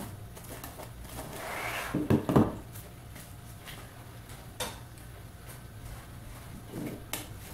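Cling film being pulled off its roll and spread over a granite countertop: a crinkling plastic rustle, a few knocks about two seconds in, then scattered light clicks and taps as it is handled.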